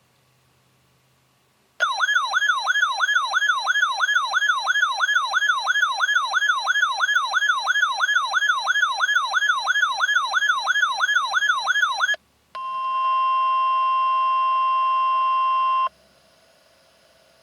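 Electronic weather alert siren warbling up and down about three times a second for about ten seconds. After a brief break comes a steady single-pitched alert tone for about three seconds, the NOAA Weather Radio warning tone that comes before a severe thunderstorm warning. It ends in faint radio hum and hiss.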